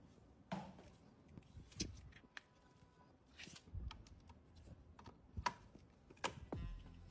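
Scattered light clicks and taps with brief rustling, from computer parts being handled and fitted during a PC build.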